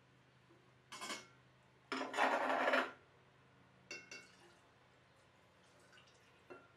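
Clear spirit poured from a tall hydrometer test cylinder into a large glass jar: a splash of liquid lasting about a second, the loudest sound. Light glass and metal knocks come about a second before it and again a little after.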